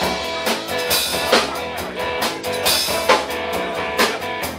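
Live rock band playing an instrumental passage between sung lines: a drum kit keeping a steady beat under electric guitars, bass guitar and keyboard.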